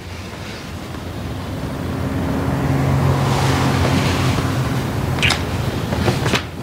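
A vehicle passing, its noise swelling to its loudest about three to four seconds in and then fading, over a steady low hum. Two sharp clicks follow near the end.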